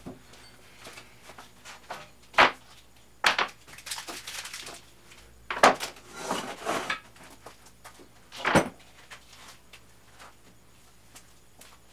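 Handling noise as grip tape is laid on a wooden ramp: a few sharp knocks with two stretches of rustling in between.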